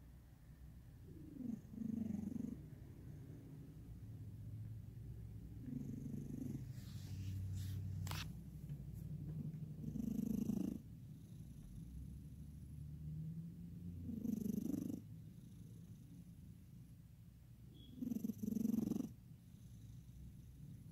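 A sleeping pet snoring, five slow snores about four seconds apart over a low steady rumble of breathing.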